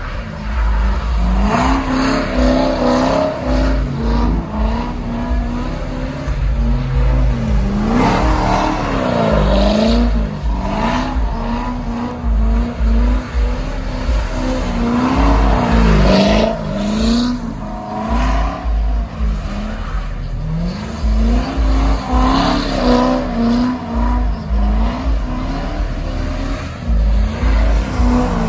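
V8 engine of a C7 Chevrolet Corvette held at high revs while the car does donuts on wet pavement, the revs repeatedly dropping and climbing again.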